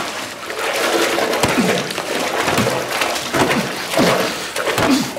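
A violent struggle: a man's strained, wordless cries and grunts over thrashing, scuffling noise.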